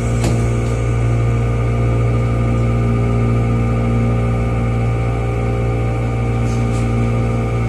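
Steady low hum of the onboard machinery of an Oigawa Railway 21000-series electric railcar (ex-Nankai Zoom Car) standing still, heard inside the cabin, with one short click about a quarter second in.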